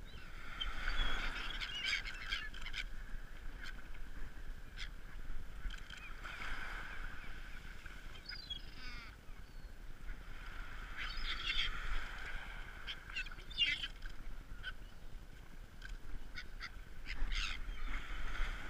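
Gulls calling: short harsh cries that come in clusters a few seconds apart.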